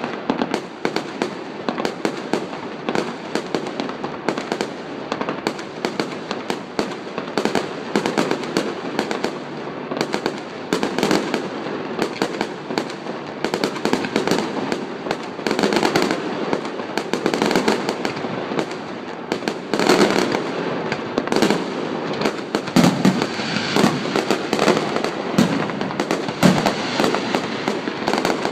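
Fireworks going off in a dense, continuous barrage of bangs and crackles, getting louder with some deeper booms in the second half.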